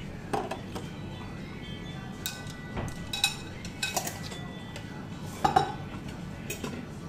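Chopsticks and a soup spoon knocking and clinking against a ceramic ramen bowl while noodles and vegetables are stirred and lifted: a scattered series of sharp clinks, the loudest a quick pair about five and a half seconds in.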